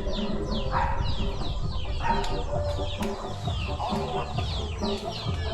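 Backyard chickens clucking amid a steady chorus of short, high, falling chirps repeating quickly.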